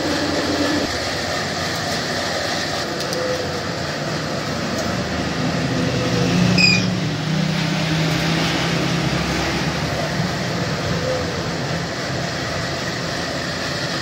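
Steady, even background noise like a running machine or traffic. About seven seconds in, one short high bird chirp sounds from among the caged birds.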